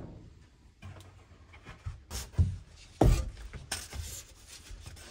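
A few knocks and rubbing sounds of things being handled, the loudest about three seconds in, with a short rustle just after.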